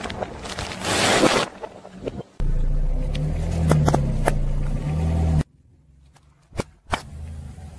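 Car tyre crushing small objects on asphalt in quick succession. First a crunching crackle for about two seconds as a bag of puffed corn snacks is flattened. Then the car's engine runs low with a few sharp pops as soft plastic balls burst under the tyre, and two sharp cracks come near the end.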